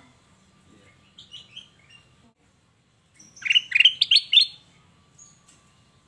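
Ruby-throated bulbul (kutilang emas) singing: a few faint chirps about a second in, then a loud quick run of about six short whistled notes, each falling in pitch, around the middle.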